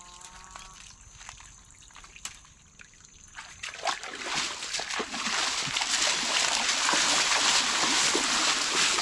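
Splashing and sloshing in shallow water, starting about four seconds in and growing louder and busier.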